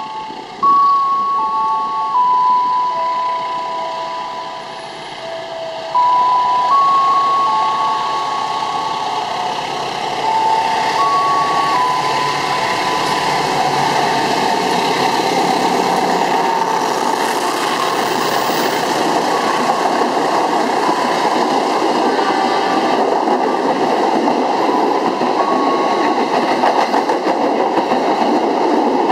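A chime melody in single notes stepping up and down plays over the approach of a diesel-hauled passenger train. From about twelve seconds in, the train runs through the station at speed without stopping, a steady loud rumble and rattle of the carriages on the rails.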